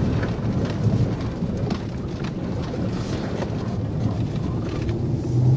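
Low, uneven rumble of a patrol car rolling slowly over a bumpy grass field, its tyres and suspension jostling, with scattered light knocks.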